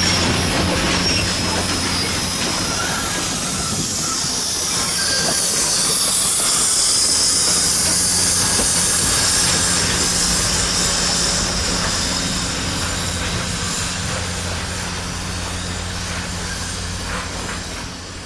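Passenger train hauled by steam locomotive Nickel Plate Road 765, a 2-8-4 Berkshire, rolling past close by. Steel wheels ring and rattle on the rails over a steady high hiss and a low hum, and the sound fades near the end.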